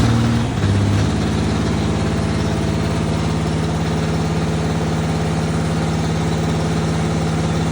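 1984 Ford skid steer's diesel engine idling steadily while it warms up to operating temperature. The note shifts briefly in the first second, then holds even.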